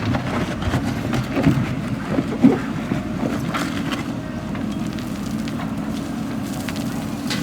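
JCB 3DX backhoe loader's diesel engine running steadily, with a couple of brief knocks about one and a half and two and a half seconds in.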